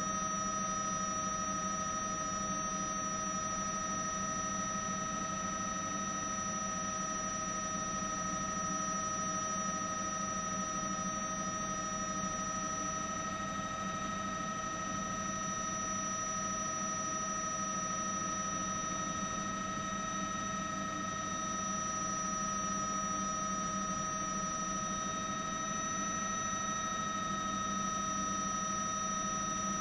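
A steady hum and hiss with several constant high-pitched tones, unchanging throughout.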